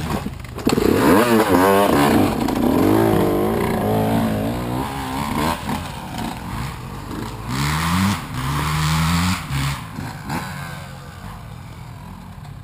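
Enduro dirt bike engine revving hard as the bike pulls away, its pitch rising and falling again and again through the gears. The engine note fades as the bike rides off into the distance near the end.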